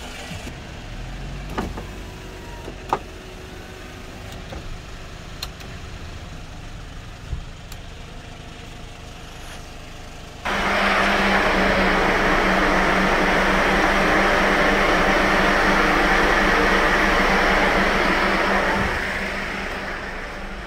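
Low steady rumble with a few light clicks. About halfway through, an electric blower fan switches on abruptly and runs with a loud, steady rush and hum, then winds down near the end.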